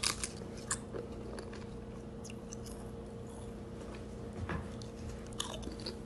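Crunching of ridged potato chips being bitten and chewed close to the microphone: a scatter of sharp crisp crackles, the loudest right at the start and a cluster about five and a half seconds in. A faint steady hum runs underneath.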